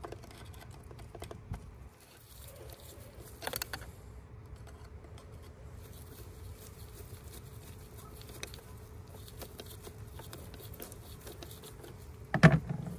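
Light clicks and rattles of plastic and metal engine-bay parts being handled and unclipped while the intake is taken apart. A short knock comes about three and a half seconds in, and a louder clatter near the end.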